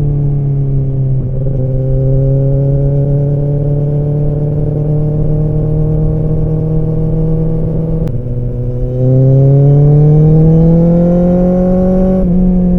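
Kawasaki ZX-10R inline-four sportbike engine and exhaust under way. The pitch climbs slowly for several seconds. About nine seconds in the throttle opens: louder, with the pitch rising faster until a gear change drops it near the end.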